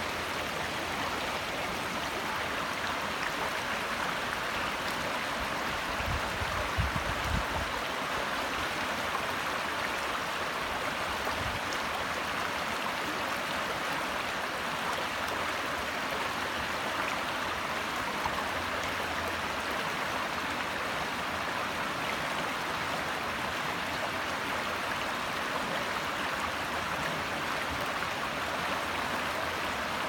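Shallow rocky brook babbling steadily over stones, a continuous rush of water. A brief low rumble comes about six seconds in.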